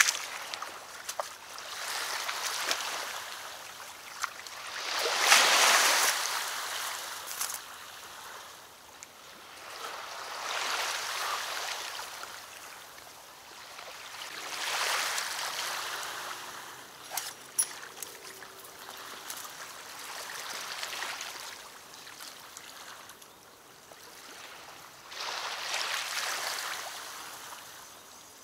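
Small waves washing onto the grassy riverbank: a rushing hiss that swells and fades about every five seconds, loudest about five seconds in.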